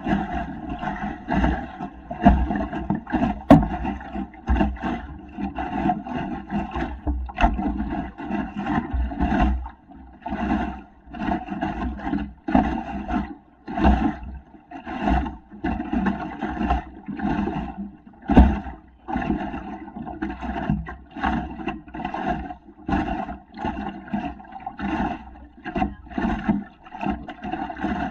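Choppy water slapping and splashing against the plywood hull of an Oz Goose sailing dinghy under way, in irregular knocks about once or twice a second, over a steady low rumble of wind on the microphone.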